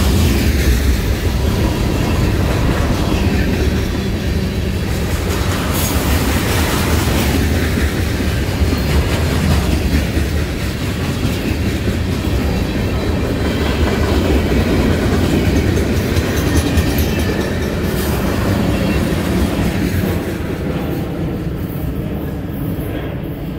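Freight train cars rolling past close by: a steady rumble with wheels clattering over the rail joints, dying away near the end as the last cars go by.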